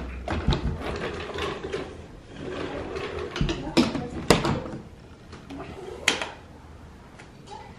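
White plastic baby safety gate at the top of the stairs being unlatched, swung and latched again: a series of sharp plastic clicks and knocks from the latch and gate, the loudest about four seconds in and another about six seconds in.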